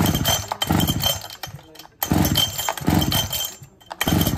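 73cc Falcon two-stroke chainsaw being pull-started again and again, its recoil starter turning the engine over in quick strokes, a little under a second apart, without it catching. This is the no-start fault being tested after a new spark plug.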